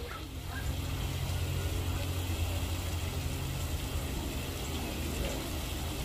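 Outdoor ambience: a steady low rumble and hiss, with a few faint bird calls.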